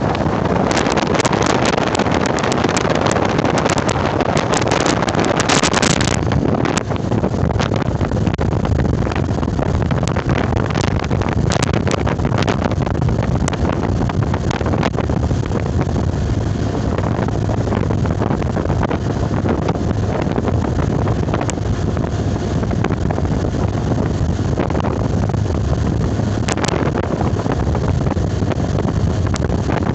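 Steady low rumble of a moving motor vehicle, with wind buffeting the microphone. Many rapid crackles during the first few seconds.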